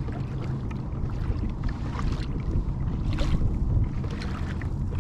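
Wind rumbling on the microphone over a kayak on choppy water, with small scattered splashes of water lapping against the plastic hull.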